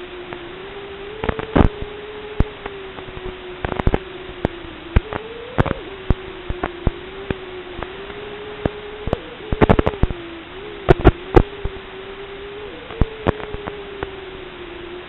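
Audio track of an analog FPV goggle DVR: a steady, slightly wavering hum under hiss, broken by irregular sharp crackles and pops, in clusters about one and a half seconds in and around ten to eleven seconds in.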